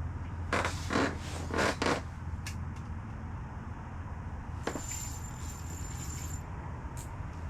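Scraping and rubbing handling noises, several short bursts in the first two seconds and a click, as an angler fights a hooked fish with rod and reel through the ice; a faint thin high tone sounds for about two seconds near the middle.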